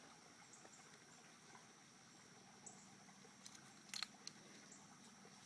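Near silence, with a few faint clicks, the clearest about four seconds in.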